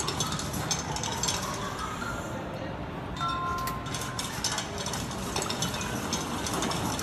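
Clock mechanism clicking and ratcheting in irregular, closely spaced ticks and clanks, with a short pair of held tones about three seconds in.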